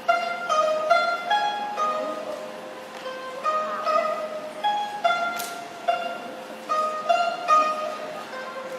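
Traditional Chinese plucked string instrument playing a slow melody: single plucked notes, about two a second, each ringing and fading before the next.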